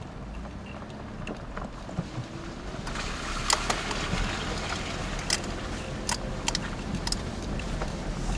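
Off-road 4x4's engine running at a low, steady speed, heard from inside the cab as it crawls a rough dirt trail. Sharp knocks and rattles from the cab over bumps stand out over it, the clearest about three and a half and five seconds in.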